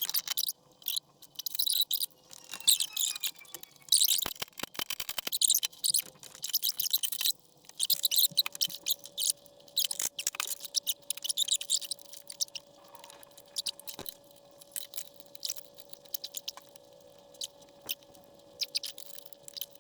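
Irregular scratchy, crackling rubbing noises of workshop cleaning-up, with a faint steady hum starting about eight seconds in.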